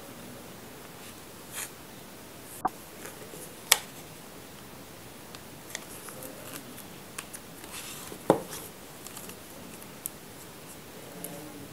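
Hands handling and turning over a plastic-wrapped cardboard phone box: scattered light taps and clicks, with two sharper knocks about four and eight seconds in, over a faint steady hiss.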